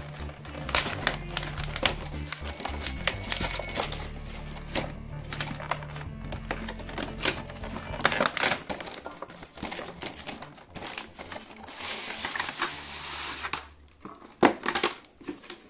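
A cardboard collection box and its clear plastic tray are handled and opened by hand: irregular taps, clicks and crinkles, with a longer sliding rustle about twelve seconds in. Background music plays underneath.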